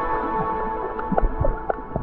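Ambient background music, its held notes fading out over the first second or so, giving way to underwater noise with a few short sharp clicks.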